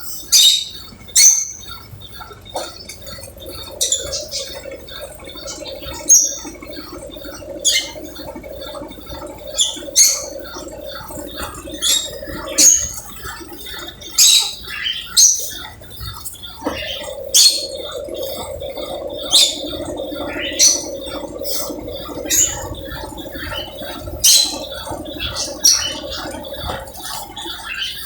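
Brastemp Ative 11 kg washing machine on its spin program, the motor humming in two long spells with a short break between. Short, sharp high-pitched squeaks sound at uneven intervals of a second or two and are the loudest thing heard.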